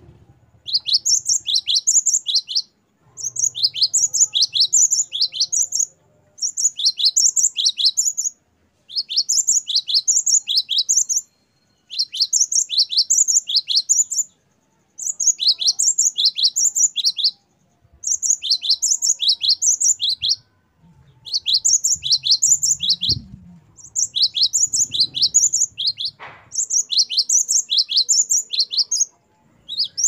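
Gelatik batu, the Asian great tit (cinereous tit), singing loud, rapid phrases of repeated high whistled notes, each note dropping in pitch. The song comes in about ten bouts of two to three seconds each, with short pauses between them.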